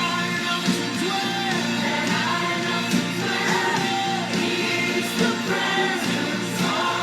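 Worship music with singing over a steady beat.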